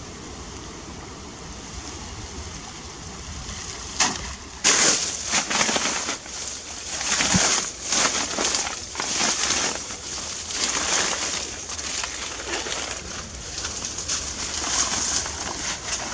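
Water splashing in irregular bursts, starting with a sharp splash about four seconds in and continuing every half second to a second, over a steady low rush of water.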